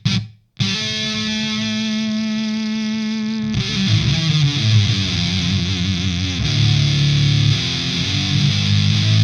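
Electric guitar played through the Plasma Pedal, a fuzz that turns the signal into high-voltage sparks in a tube, into a miked guitar amplifier. The pedal's natural gate cuts the sound to nothing briefly near the start. Then a distorted note rings for about three seconds before a low chugging riff.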